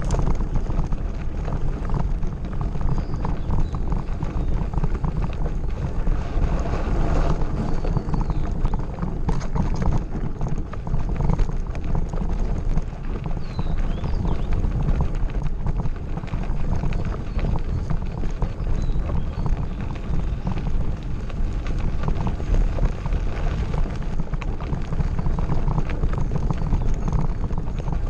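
Mountain bike rattling and crunching over a rough gravel forest road: a dense, steady clatter of small knocks over a low rumble of wind on the microphone.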